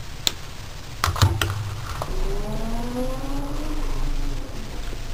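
A few sharp metal clicks and knocks as ground coffee is spooned into the espresso machine's portafilter, then the espresso machine's pump humming while it pulls the shot, its pitch rising slowly before fading out near the end.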